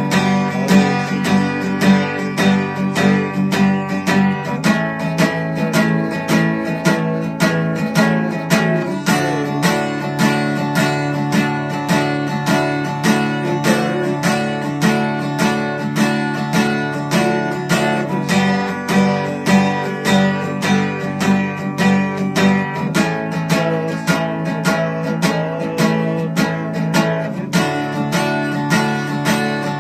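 Acoustic guitar strummed in a steady rhythm, with the chord changing every four or five seconds; no singing.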